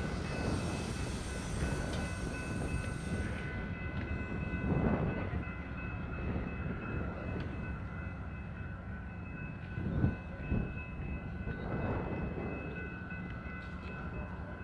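Amtrak P42DC diesel locomotives idling on a passenger train standing at the station: a steady low rumble with a steady high whine over it. A hiss stops about three and a half seconds in, and wind gusts on the microphone a few times.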